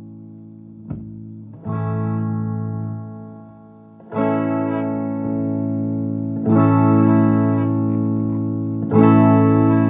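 Chords played through a 1983 Vermona Regent 300 K amplifier, sounding like an electric guitar. Each chord is struck and left to ring, slowly fading, with four chords in turn.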